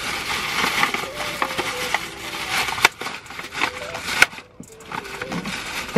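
Thin plastic shopping bag rustling and crinkling as it is handled and stuffed, with many sharp crackles and a short lull about four and a half seconds in.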